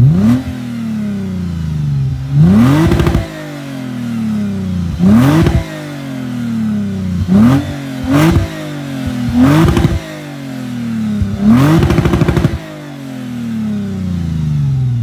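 Lexus RC350's 3.5-litre V6 with a Greddy aftermarket exhaust, revved while parked: seven quick throttle blips, each rising sharply in pitch and falling back toward idle over a second or two, two of them close together about eight seconds in.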